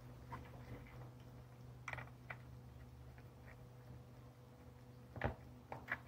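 A few faint clicks and taps of plastic and wire as hands push a wire into a timer relay's screw terminal and handle the relay, with a sharper click near the end, over a low steady hum.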